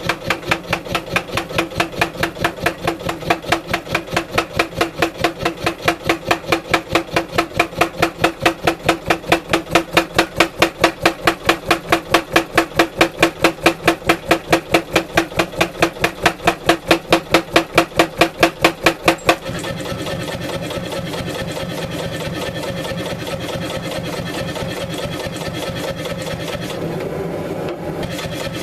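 Power hammer with a 16 kg head striking a hot wootz ingot in a fast, even rhythm of several blows a second, drawing it out into a bar. About two-thirds of the way through the blows stop suddenly and only the hammer's motor keeps running with a steady hum.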